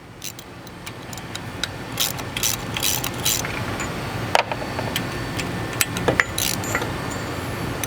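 Wrench turning out the bolts of a hose-loader swivel's stop block: scattered sharp metal clicks and ticks, some in short runs, over a steady low hum.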